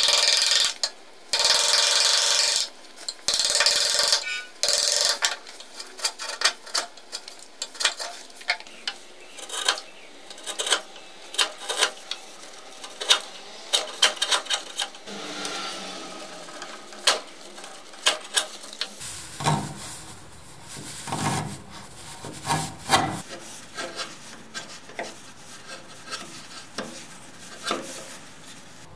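Sharp bench chisel paring a mitre face on a wooden block, slicing off curled shavings. A few long slicing strokes come in the first five seconds, then many short scraping cuts and ticks. A stretch of heavier knocks comes about two-thirds of the way through.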